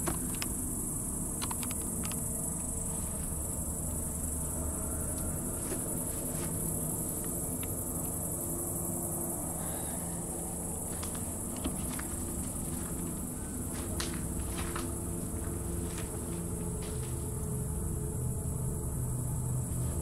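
Crickets trilling steadily and continuously at a high pitch, with scattered soft footsteps and rustles of someone walking through overgrowth.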